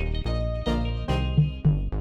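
Background music: plucked guitar-like notes over a steady bass beat.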